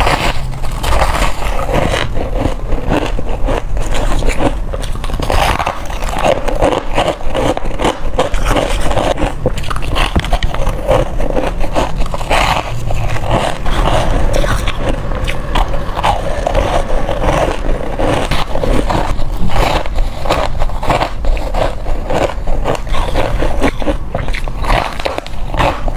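Close-up crunching of hard crushed ice being bitten and chewed: a dense, continuous crackle of sharp crunches with no pauses.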